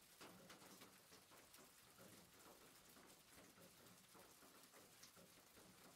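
Near silence: faint hiss with scattered faint ticks.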